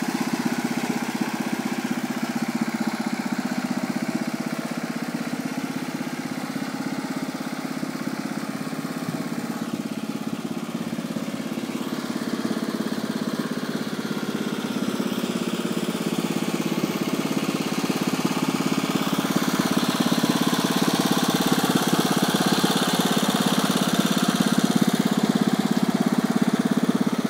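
Small vintage Bouyer tractor's engine running steadily as the tractor drives slowly along, growing louder as it comes close in the second half.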